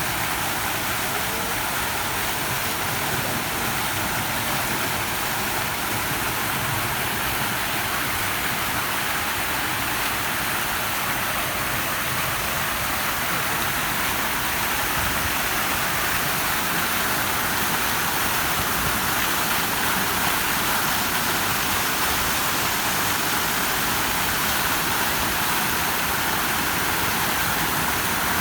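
Steady rushing water: an even, unbroken hiss with no change in level.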